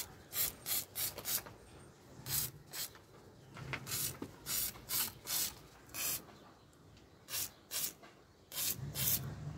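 Aerosol cleaning spray squirted onto a small ATV engine in a string of short hissing bursts, a dozen or more, some in quick runs of three or four.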